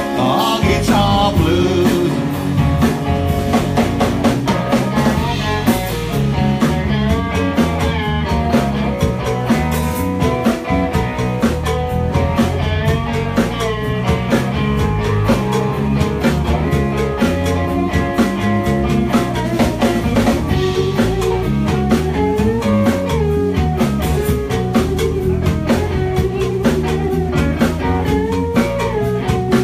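Live rock band playing: electric guitars over a steady drum-kit beat, loud and continuous.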